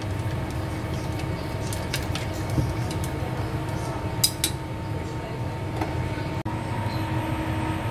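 Wooden chopsticks whisking beaten egg in a stainless steel bowl, with a few sharp clinks of the sticks against the bowl, loudest as a pair about four seconds in. A steady low hum runs underneath.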